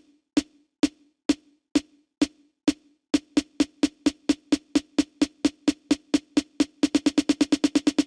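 Electronic drum-machine build-up: a single pitched drum hit repeats about twice a second. It doubles in speed about three seconds in and doubles again near the end, accelerating into a fast roll ahead of a beat drop.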